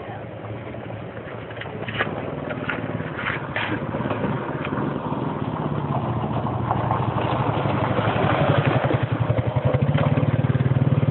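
An engine running with a steady low pulse, growing louder over the whole stretch, with a few light clicks and scrapes about two to four seconds in.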